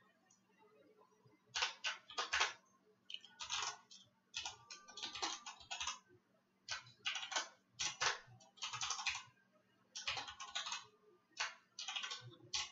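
Keystrokes on a computer keyboard as code is typed, coming in quick bursts of several keys with short pauses between them.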